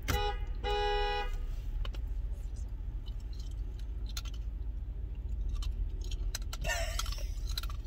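Car horn honking twice, a short toot and then a longer one of under a second, heard from inside the car over the low rumble of the idling engine.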